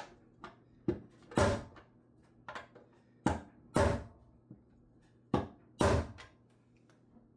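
Hard thumps on a 21mm socket set over the oil drain plug of a diesel engine's oil pan, knocking out a dent in the pan. About six heavy blows, several in pairs about half a second apart, with lighter taps in between.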